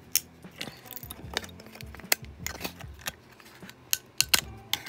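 Steel pliers gripping and working small parts off a circuit board: a string of irregular sharp metal clicks and clacks against the board, several close together near the end.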